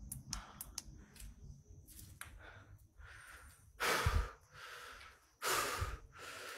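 A man's heavy breathing close to a phone's microphone: two loud breaths about four and five and a half seconds in, with a softer one between. Before them there is a faint low rumble with a few small clicks.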